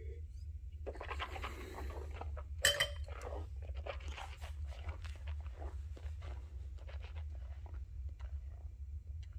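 A taster sips and slurps red wine, drawing air through it. About two and a half seconds in, the glass is set down on a granite countertop with a single sharp knock. Soft wet mouth sounds follow as the wine is worked around the mouth, over a steady low hum.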